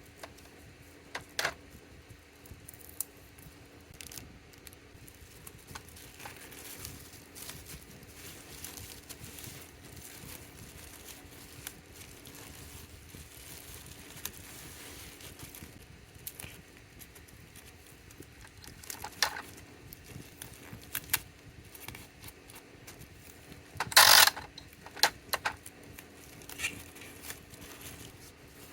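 Hand-packing small goods: scattered clicks, taps and light rustling of plastic packaging and paper items being handled, with one loud short crackle or rip toward the end. A faint steady hum runs underneath.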